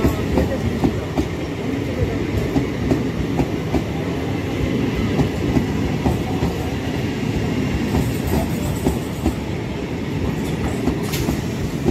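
Electric multiple unit local train running past, its wheels clicking over the rail joints in a quick, steady rhythm over the continuous rumble of the coaches.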